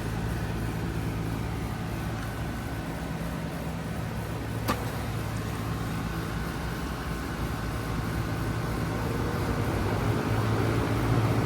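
Outdoor heat pump or air-conditioner condensing unit running: a steady low hum, with a single sharp click a little before halfway.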